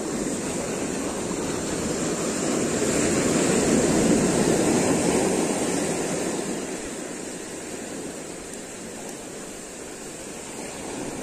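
Ocean surf washing up over a sand beach, swelling to its loudest about four seconds in and then ebbing away.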